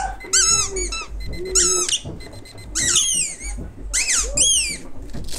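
Young people shrieking and squealing: about half a dozen short, very high-pitched cries in quick succession, each rising and then falling in pitch.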